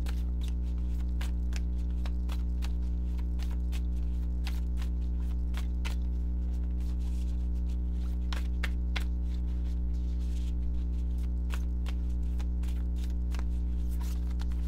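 Oracle cards being shuffled by hand: a run of quick, irregular card clicks and slides over a steady low hum.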